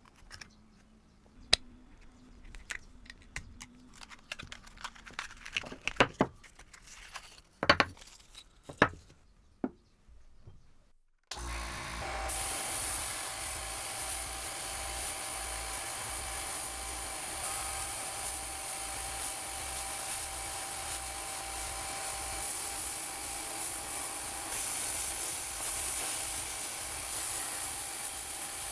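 Scattered clicks and knocks of tools and metal being handled, then about eleven seconds in a power tool starts suddenly and runs steadily with a constant whine.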